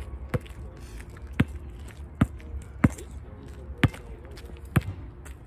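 Basketball dribbled on an asphalt court: six sharp bounces at an uneven pace, about one a second.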